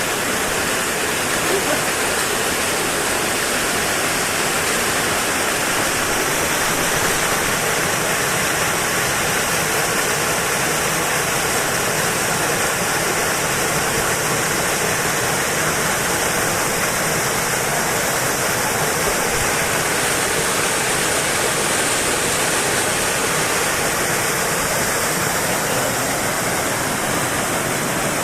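Waterfall rushing steadily, a constant full roar of falling water with no change in level.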